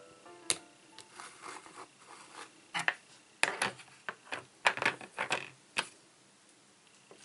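Hard plastic toy pieces of a Play-Doh pizza playset clicking and knocking together as they are handled and set down, with some light scraping. A run of sharp clicks and taps, busiest in the middle, stops about six seconds in.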